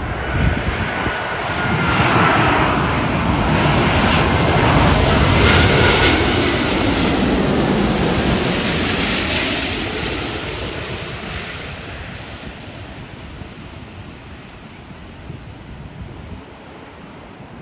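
Jet airliner passing overhead, its engine noise swelling to a peak over several seconds with a faint whine, then fading away.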